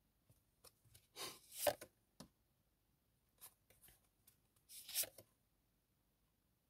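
Tarot cards being handled: two brief sliding, rustling swishes, about a second and about five seconds in, with a few small clicks between them.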